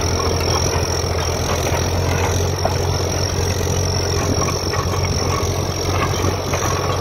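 Turbocharged Massey Ferguson 135 tractor engine running steadily under load as it pulls a six-bottom plough.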